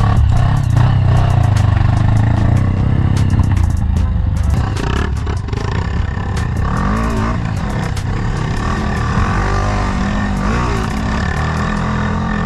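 Dirt bike engine heard from the bike itself while trail riding, its pitch rising and falling repeatedly with the throttle, amid frequent sharp ticks and rattles from the bike over rough ground.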